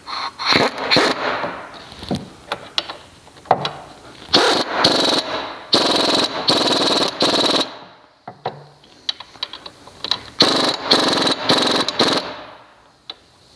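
A 3/8-inch nano impact wrench running caliper bracket bolts in, in several bursts of rapid hammering with a high motor whine, each a second or two long with short pauses between.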